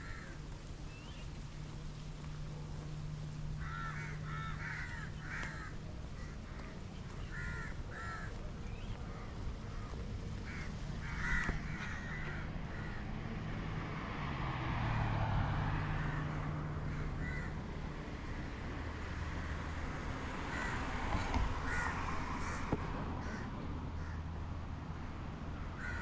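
Crows cawing in short repeated bursts, with outdoor traffic. A car passes about midway, and another near the end.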